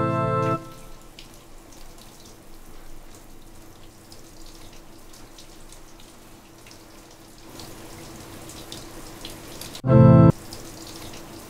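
Keyboard music cuts off about half a second in, then a shower runs with a steady hiss of water that grows a little louder later on. About ten seconds in, a short, loud sustained keyboard chord cuts in.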